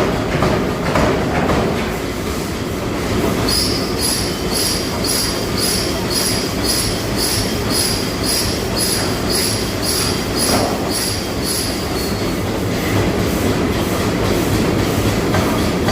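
Forging-shop machinery running with a steady low rumble. From about four seconds in until about twelve, a high-pitched metallic squeal pulses about two to three times a second, then stops.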